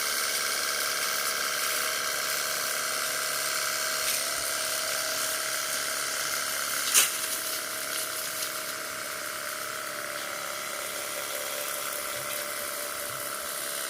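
Cordless battery-powered high-pressure washer running: the small electric pump motor whines steadily under the hiss of a long straight water jet from the red narrow-jet nozzle. A sharp click about seven seconds in.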